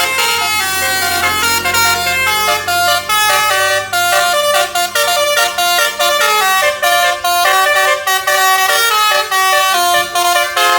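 Bus basuri (telolet) multi-tone horn playing a melody: quick stepped notes with short breaks between phrases. A low hum sits under the first few seconds, and the horn cuts off suddenly at the end.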